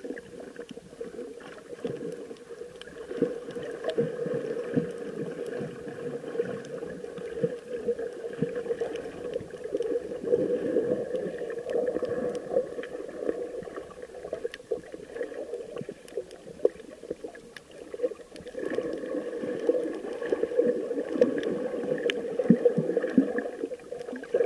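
Muffled underwater noise while snorkeling over a coral reef: swelling and fading water movement with a steady low hum and many scattered sharp clicks.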